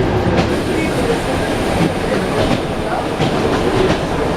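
ED9M electric multiple unit running on the line, heard inside the carriage: a steady low rumble with the wheels knocking over rail joints several times.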